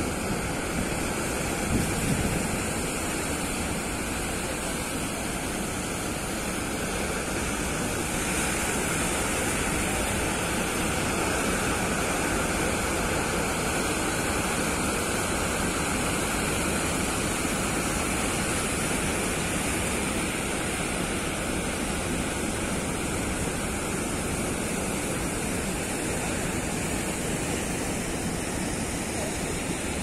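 Heavy ocean surf: big waves breaking on the beach and against the rocks, a steady rushing wash of water noise that swells a little partway through.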